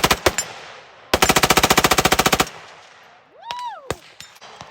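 Fully automatic gunfire on a firing line. A few quick shots open, then a sustained burst of about twenty rounds at roughly fifteen a second lasts about a second and a half. A brief rising-and-falling whistle-like tone follows, then a few scattered single shots near the end.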